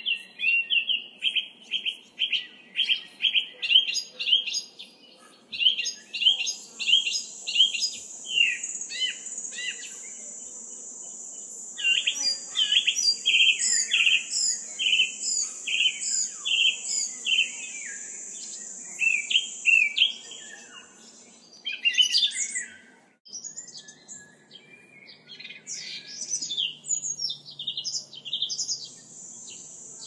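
Forest birds calling in quick, overlapping series of short chirps, with a steady high-pitched insect buzz from about six to twenty seconds in. The sound cuts out abruptly about 23 seconds in, then the chirping resumes more quietly.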